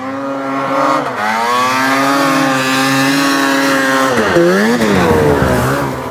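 Snowmobile engine running at high revs while the sled ploughs through deep powder. The engine note dips sharply and climbs again about four to five seconds in.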